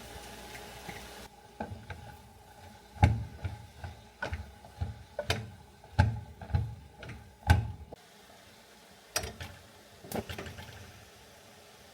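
A series of irregular knocks and clunks, about a dozen, spaced unevenly and loudest in the middle, with a few lighter clicks near the end. A steady hum underneath stops about a second in.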